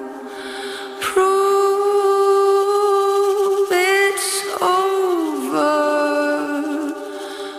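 A singing voice holds long, sustained notes over faint backing. There is a short swoop up and down in pitch around the middle. It is quieter for about the first second and again briefly near the end.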